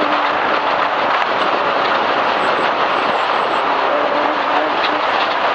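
Off-road race vehicle's engine running steadily at speed on a dirt trail, heard under loud, even rushing road and wind noise.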